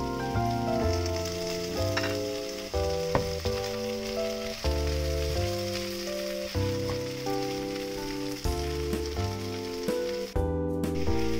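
Potatoes, onion and broccoli sizzling in a frying pan, stirred with a wooden spatula, over background music. The sizzle cuts out briefly near the end while the music carries on.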